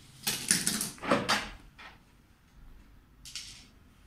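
Handling noise as a flat-screen TV and its plastic stand legs are shifted on a cardboard box: a quick run of scrapes and knocks in the first second and a half, then a short scraping slide a little past three seconds.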